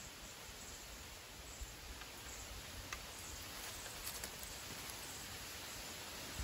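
Faint rustling and a few light clicks from handling bamboo poles and lashing, over a steady background hiss.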